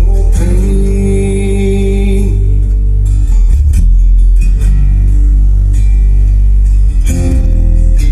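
Music with guitar and heavy, continuous bass, played loud through a home-built computer subwoofer.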